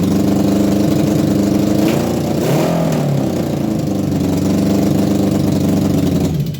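1980 Honda CB750F's air-cooled inline-four engine running steadily, with one short rev that rises and falls about two and a half seconds in, then cutting off suddenly near the end.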